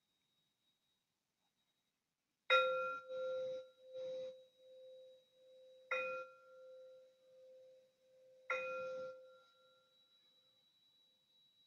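A singing bowl struck three times, about three and a half and then two and a half seconds apart. Each strike rings on in a pulsing tone that slowly fades.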